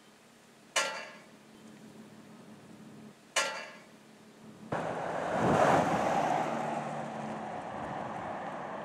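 Two sharp hits about two and a half seconds apart, each ringing briefly as it dies away. About five seconds in, a rushing outdoor noise comes in suddenly, swells for a second and then holds steady.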